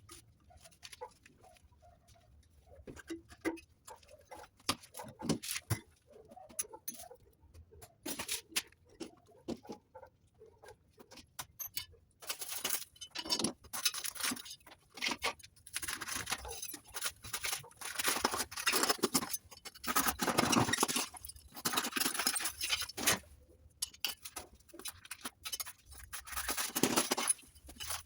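Hand work: scattered small clicks and taps, then from about twelve seconds in, repeated rasping, scraping strokes of material being cut or scraped by hand.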